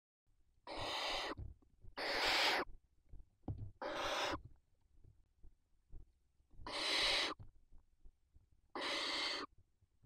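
Barn owls giving harsh hissing calls, five in all, each well under a second long and roughly two seconds apart.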